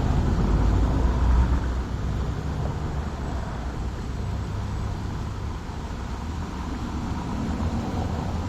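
Road traffic noise: a steady low rumble of vehicles, louder in the first two seconds, then settling.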